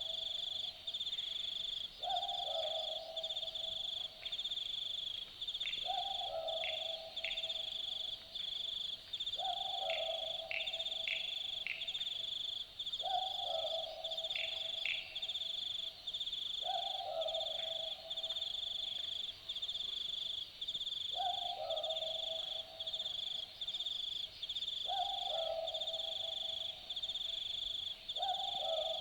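Australian Boobook owl repeating its two-note 'boo-book' call, one call every three to four seconds, about eight times. A high, steady chirring of insects runs underneath.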